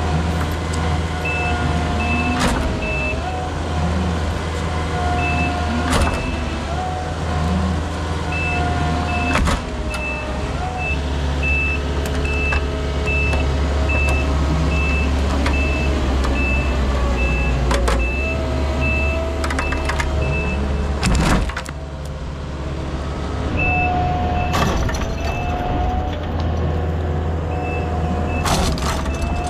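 Takeuchi compact track loader's engine running and dipping under load as it works dirt. Its back-up alarm beeps about twice a second in several stretches, and there are a few sharp clanks.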